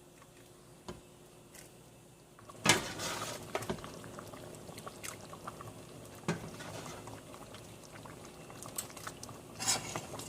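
A ladle knocks against a pot a few seconds in, then cooked mung beans and their liquid are ladled and poured into a simmering pot, with more clinks and scrapes of the ladle against the pot.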